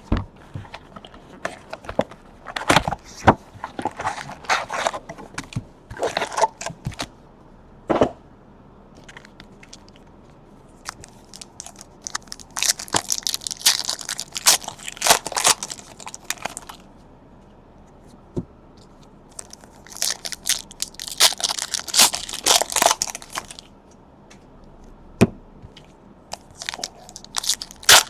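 A sealed trading card box being opened by hand. Plastic wrapping crinkles and tears in three bursts a few seconds long, between scattered clicks and taps from handling the box.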